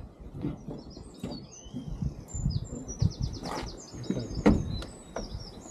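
Songbirds singing, with rapid trills of quickly repeated high notes, the longest about halfway through. Scattered knocks and clunks come in between, the loudest a little after four seconds in.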